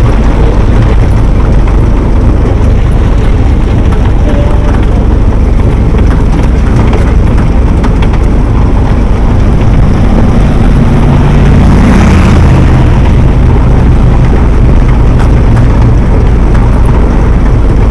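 GAZ-67's four-cylinder side-valve engine running steadily while the jeep drives along, heard from inside the open cab with heavy low rumble from wind and road. For a few seconds in the middle the engine note stands out more clearly.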